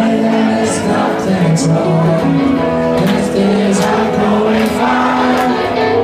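Live rock band playing loud: electric guitars, bass and drums, with cymbal hits about once a second, and singing over the top.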